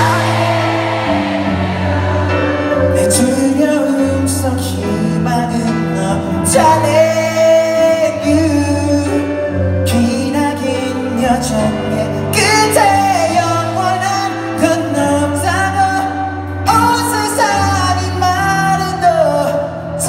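Live pop ballad: singing over sustained keyboard chords, heard in a large concert hall.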